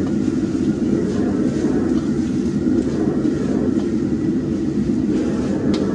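A steady, low mechanical roar, with a faint click near the end.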